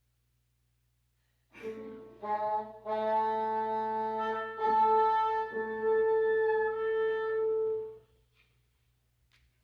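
Wind quintet playing a short passage: a few changing chords, then a long held chord that cuts off cleanly. The music starts after a moment of silence and stops well before the end.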